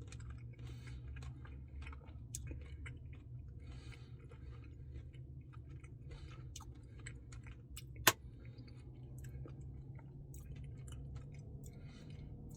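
Close-miked chewing of a Dairy Queen salted caramel truffle Blizzard, with many small wet mouth clicks over a low steady hum. One sharp click stands out about eight seconds in.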